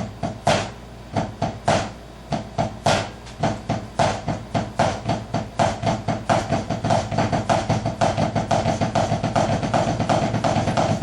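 Drumsticks playing Swiss Army triplets, a flam followed by two taps, with the third note accented. It starts slowly in spaced groups and speeds up into a fast, continuous stream of strokes from about four seconds in.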